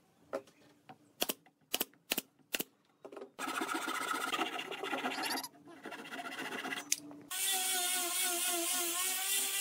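A few sharp knocks, then a hand saw cutting through a wooden board in quick strokes. About seven seconds in, an angle grinder with a sanding disc starts and runs steadily, its motor whine wavering as it sands the wooden hull.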